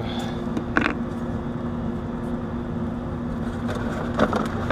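Steady low mechanical hum and rumble, with two light knocks, one about a second in and one near the end.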